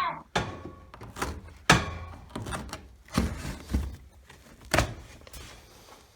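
Milwaukee FASTBACK hawkbill folding knife being handled, with about seven sharp clicks and snaps at uneven intervals as the blade is flicked open and folded shut.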